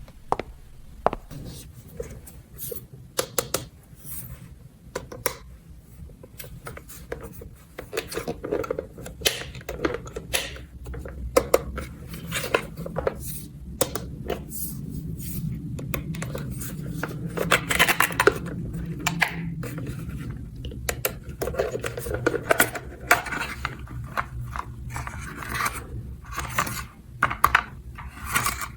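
Small hard plastic toy pieces clicking, clattering and scraping as they are handled, with many sharp irregular clicks that come thicker through the middle stretch.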